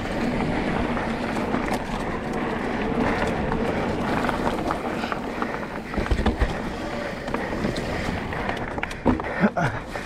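Mountain bike riding fast down a dirt singletrack: steady rolling and rattling of tyres, chain and frame over dirt and roots, with wind noise on the microphone. Harder knocks from bumps come about six seconds in and again about nine seconds in.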